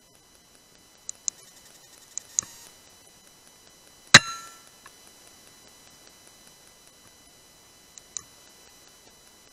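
A single shot from a BSA R10 Mk2 .177 pre-charged pneumatic air rifle about four seconds in: one sharp crack with a short ringing tail. A few faint clicks come before it and two more near the end.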